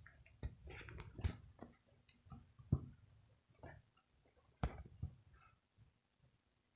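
Faint scattered knocks and clicks at irregular intervals, about five sharp ones in all, with some soft rustling between them.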